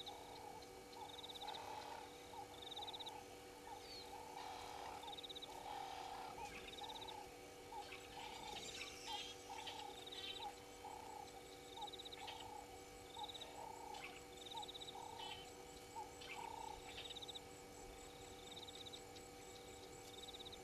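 Faint wild animal calls: a low note repeated about once a second alongside a higher trilled chirp on a similar rhythm, both fading out about three quarters of the way through.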